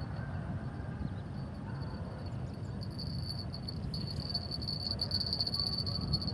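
Insects chirring in one steady high band that grows louder about halfway through, over a constant low rumbling noise.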